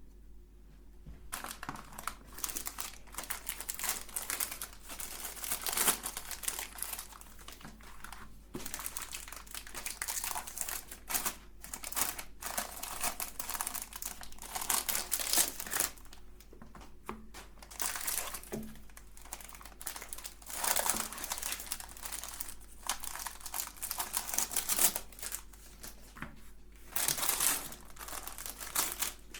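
Irregular crinkling and crackling that starts about a second in and comes in uneven bursts, like something crisp being crushed or handled.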